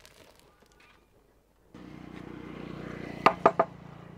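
Faint crackle of a hot steel blade quenched in oil, then a steady hum from an electric angle grinder's motor. Three quick sharp knocks a little past halfway are the loudest sounds, and the hum slowly fades after them.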